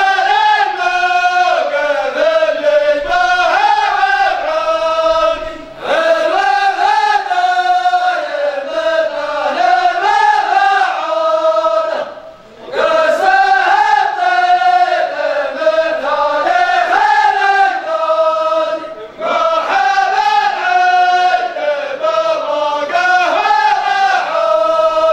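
Male voices chanting an Arabic sung poem in long, melodic phrases, pausing briefly about every six seconds.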